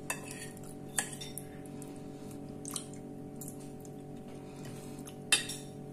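A metal fork clicking against a ceramic plate a few times as scrambled egg is scooped up. The sharpest clicks come about a second in and near the end. A steady hum runs underneath.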